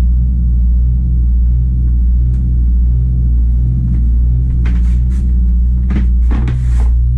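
Fishing boat's engine running, a loud steady low drone with a slow, even throb, heard from inside the boat's cabin. A few short handling noises come near the end.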